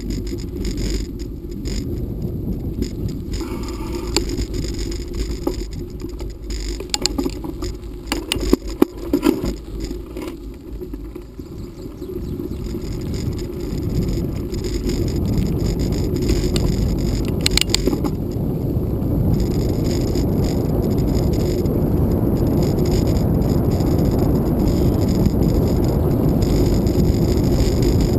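Bicycle ridden over a rough dirt forest track: steady rushing wind noise on the microphone with the bike rattling and scraping over bumps, and a cluster of sharp knocks about eight to nine seconds in. From about twelve seconds in the wind noise grows louder and steadier.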